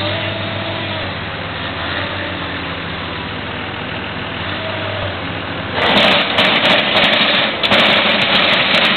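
Excavator's diesel engine running with a steady hum whose pitch shifts a little, then turning much louder and rougher about six seconds in.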